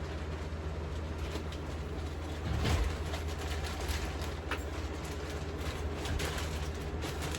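A steady low mechanical hum, with light knocks and clatters scattered over it, the loudest about three seconds in.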